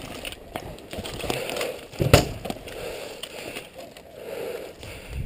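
Footsteps and rustling through dry undergrowth and branches, with a few light clicks and one sharp knock about two seconds in.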